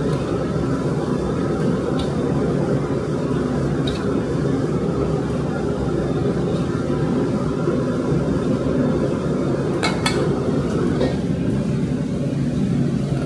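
Steady low rumbling roar, even in level, with a few faint clicks and clinks, a small cluster of them near the end.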